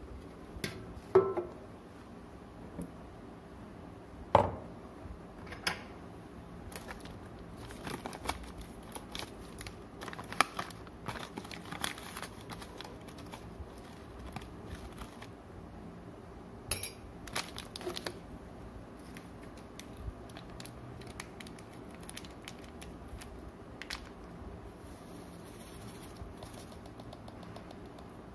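Handling coffee packaging and utensils on a kitchen counter: scattered knocks and clicks, crinkling of a plastic coffee pouch, and a metal spoon clinking against cups, with quiet stretches between. The two loudest knocks come about one and four seconds in.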